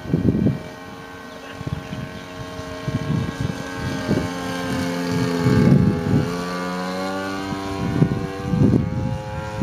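Zenoah G-45 two-stroke gas engine of a large-scale R/C biplane running in flight as the plane passes, its pitch bending and loudest a little past halfway. Low gusts of wind buffet the microphone several times.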